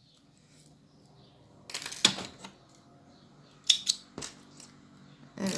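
Handling noises from sewing: a few sharp clicks and rustles as a button and the knitted fabric are handled, in clusters about two seconds in, around four seconds, and at the end.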